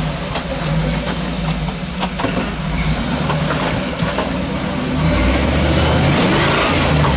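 Rock crawler's engine running at low revs as it crawls over boulders, with scattered light clicks. About five seconds in it gets louder as the engine is worked harder.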